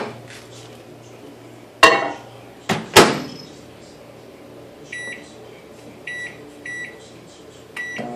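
Microwave oven door shut with a few sharp clacks about two and three seconds in. Then four short keypad beeps as a 13-second heating time is entered and started.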